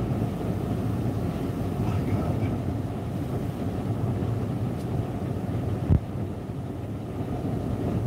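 Low, steady rumble of wind and storm waves breaking on a rock breakwall, muffled from inside a parked car. One dull thump comes about six seconds in.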